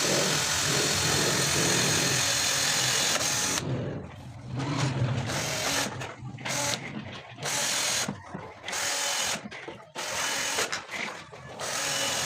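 A handheld electric power tool runs steadily for about three and a half seconds, then is switched on and off in a series of short bursts.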